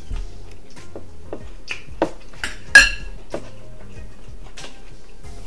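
Metal serving spoon clattering against a glass stew bowl, with one loud ringing clink a little before the middle among scattered smaller clicks of dishes and shellfish being handled. Soft music plays underneath.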